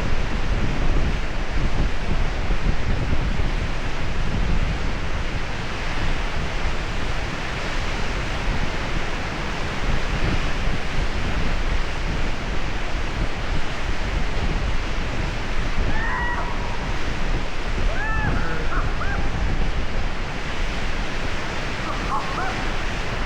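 Steady rushing noise of a mountain waterfall pouring down close by, with wind on the microphone. A few faint, short sliding tones come through near the end.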